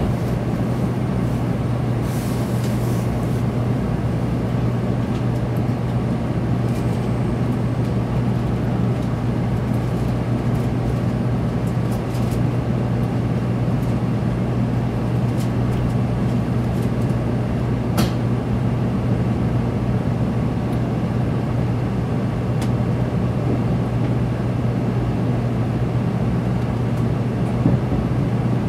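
Steady low hum and rumble inside the passenger cabin of a 700 series Shinkansen as the train pulls slowly out of the station, with a few faint clicks and one sharp click about 18 seconds in.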